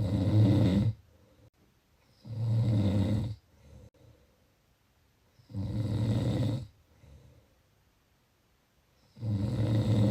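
Snoring: four loud, low buzzing snores about a second long, coming roughly every three and a half seconds, with soft breaths between them.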